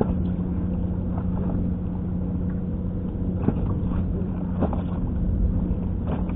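Boat engine idling with a steady low hum, and a few faint clicks from handling the tackle.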